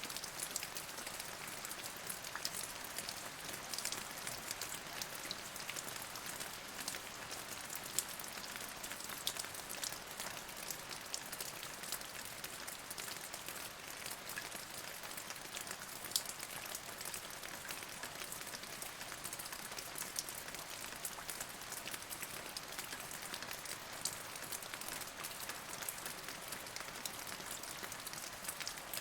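Steady rain falling: an even hiss dotted with many separate drop clicks.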